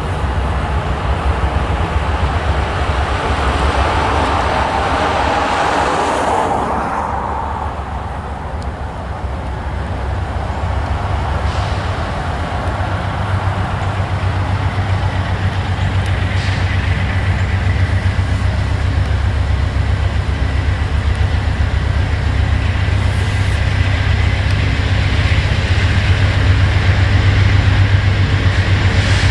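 Low, steady rumble of an approaching diesel-hauled passenger train, growing louder from about twelve seconds in. Early on, a broad hiss swells and fades away, like a road vehicle passing on wet pavement.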